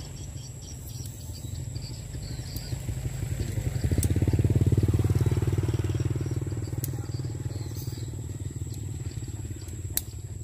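A vehicle engine passing by: it grows louder from about two seconds in, is loudest around five seconds, then fades away.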